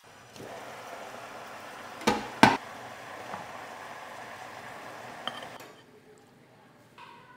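Two sharp knocks about half a second apart, over a steady hiss that stops suddenly about two seconds before the end.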